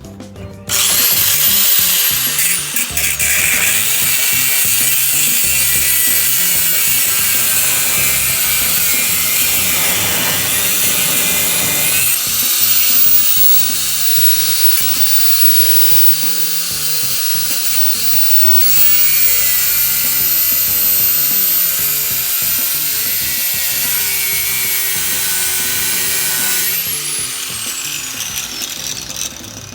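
An angle grinder cutting or grinding steel, run continuously for about half a minute, with a high thin whine from the spinning disc that slowly drifts in pitch as it bites.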